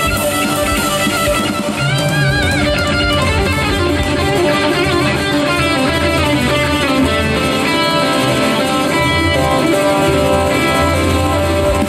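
Live rock band playing an instrumental passage: electric guitar lead with wavering, bent notes about two seconds in, over bass guitar and drums.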